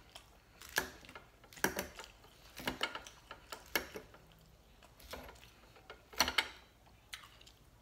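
Eating a green lettuce salad with a fork, close to the microphone: short crisp clicks and crunches, about one a second, some in quick little clusters.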